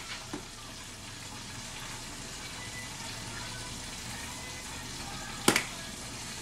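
Stovetop cooking noise: a pot of water bubbling at a rolling, foaming boil and oil sizzling in a pan, steady throughout, with a sharp click about five and a half seconds in.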